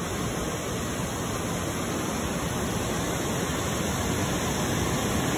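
Waterfall in heavy flow after recent rain: a steady, even rush of falling water.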